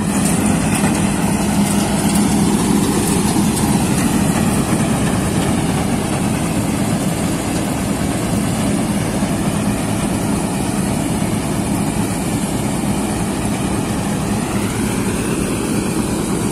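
New Holland TC-series combine harvester running steadily while cutting alfalfa with its grain header, a loud, even engine drone with a constant low hum.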